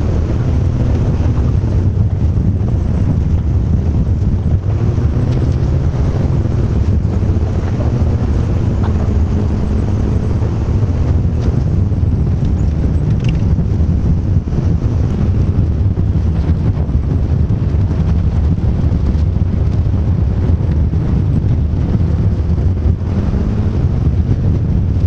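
A vehicle's engine drones steadily, with road and wind noise heard from inside the cab as it drives. A short, high squeak comes about halfway through.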